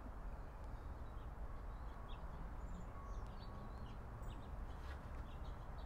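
Faint, scattered bird chirps over a steady low background rumble.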